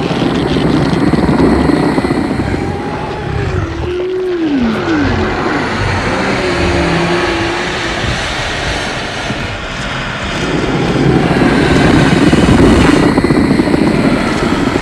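Monster vocal sound effect for the giant sea worm Titanus Charybdis: a loud, rough, pulsing growl, with a few short falling cries about four seconds in and a higher held cry just after.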